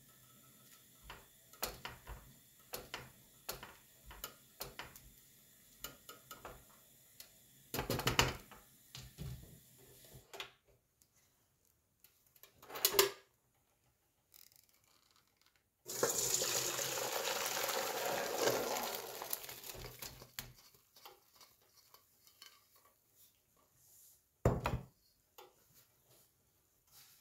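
A silicone spatula stirs rice and vermicelli in an enamelled pot of boiling water, with light clicks and knocks against the pot. Past the middle, the cooking water is poured off through a metal colander in a splashing rush that lasts about four seconds and fades out, followed by a single knock.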